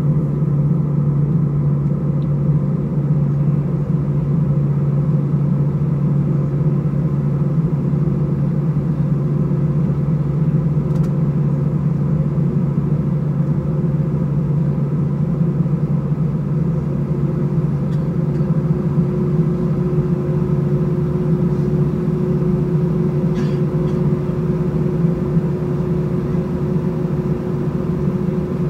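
Inside the cabin of an Airbus A320, its CFM56-5A engines running at low taxi power: a steady hum with a strong low tone, and a fainter higher tone that grows clearer about two-thirds of the way through.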